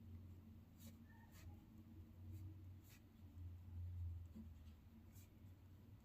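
Faint pen strokes scratching on paper, a few short scratches spaced a second or two apart, over a low steady hum.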